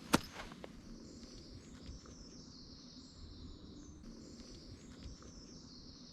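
Small birds singing in woodland, high thin phrases repeated about once a second, after a single sharp click just as it begins.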